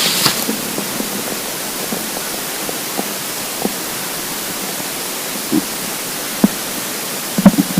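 Empty human stomach rumbling from hunger, heard close up over a steady hiss: scattered short, low gurgles, with a louder cluster of gurgles near the end.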